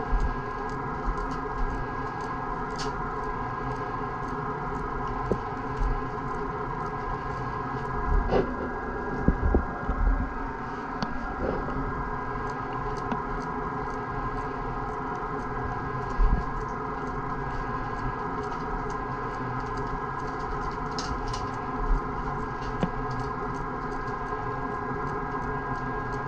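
A steady motor hum with several fixed tones, with a few soft low knocks and faint clicks over it.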